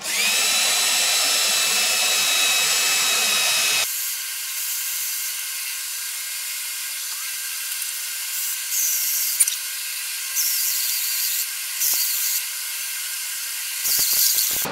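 Cordless drill spinning up and drilling into a small metal tab clamped in a bench vise, a steady high whine. About four seconds in, the sound turns thinner and steadier, with several brief louder surges as the bit cuts.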